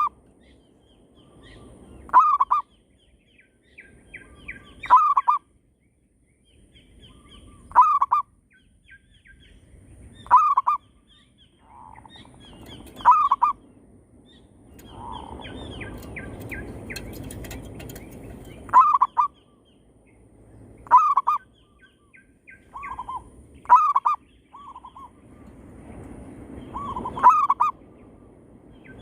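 Zebra doves (perkutut) cooing back and forth, a short rolling phrase about every two to three seconds, with smaller birds chirping higher in between.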